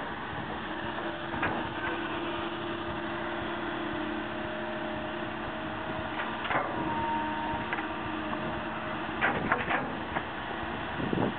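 312 long-reach excavator working in mud: a steady engine and hydraulic drone with a faint held tone, broken by clanks and scrapes from the bucket and linkage, the loudest cluster of them near the end.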